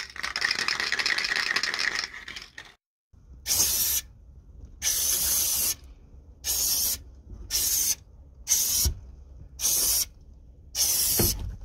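Aerosol spray-paint can: the mixing ball rattling as the can is shaken for about two and a half seconds, then after a short pause seven short bursts of spraying hiss with brief gaps between them.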